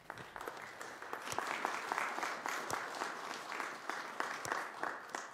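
Applause from a small gathering in a large hall. It builds over the first couple of seconds and tapers off toward the end.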